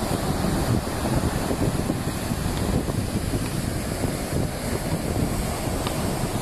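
Wind buffeting the microphone with surf washing on the shore behind it, a steady rough rumble.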